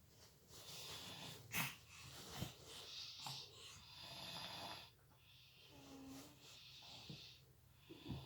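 Soft snoring: several slow, hissy breaths, each lasting a second or two.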